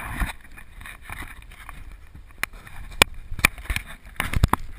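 Sharp knocks and clicks of an action camera being handled and turned around, scattered through, with a quick cluster near the end, over a low wash of water against a kayak.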